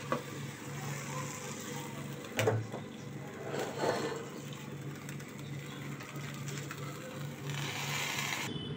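Steel cookware being lifted off a gas stove with a cloth: a few metal clinks and knocks, about a second, two and a half and four seconds in, over a steady low hum. A short hiss follows near the end.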